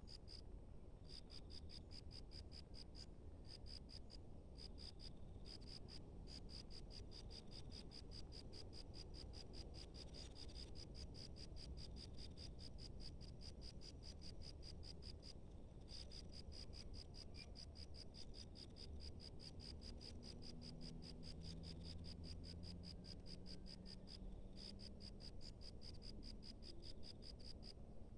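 A cricket chirping in a fast, even pulse train, in runs of a few seconds broken by short pauses, over a faint low rumble.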